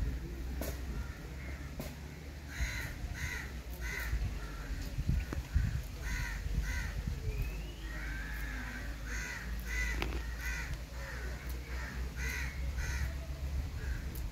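A bird cawing: short calls in groups of two or three, repeating about every three seconds, over a steady low rumble.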